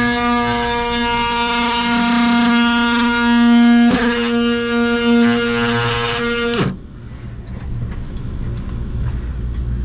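Milwaukee cordless oscillating multi-tool running with a steady high buzz as its blade cuts into a wall panel; it cuts off suddenly about two-thirds of the way through, leaving a low rumble.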